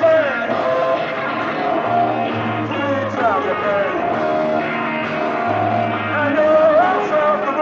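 Live rock music: an electric guitar lead with notes bending up and down over held bass notes and drums.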